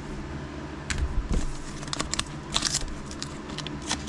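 Foil trading-card pack crinkling and tearing as it is pulled open by hand, a run of sharp crackles starting about a second in.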